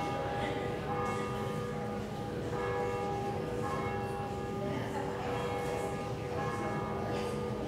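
Church bells ringing: repeated strikes whose tones ring on and overlap.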